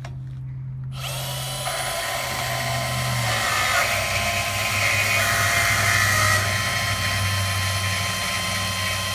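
Milwaukee Fuel cordless brushless portable bandsaw running, its blade meeting the metal strut about a second in and then cutting steadily through it under the saw's own weight, a dense grinding hiss with a steady high whine over the motor hum.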